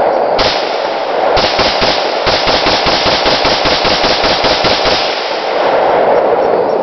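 Galil-pattern semi-automatic .223 rifle fired rapidly, shots coming about five a second; the firing stops about five seconds in with the magazine emptied.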